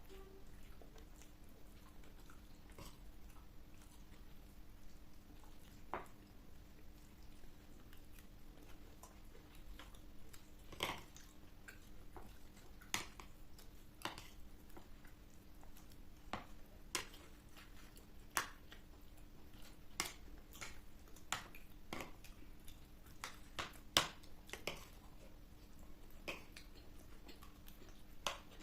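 Close-up eating sounds of crisp street food such as panipuri and samosa chaat: irregular sharp crunches and clicks, about one every second or so, between quieter chewing. A faint steady hum runs underneath.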